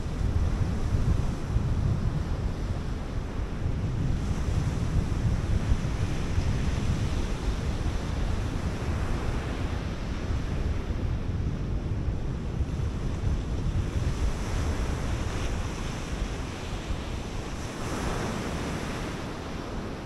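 Sea surf breaking on a sandy beach, with wind buffeting the microphone in a gusty low rumble. The surf swells louder about nine, fifteen and eighteen seconds in.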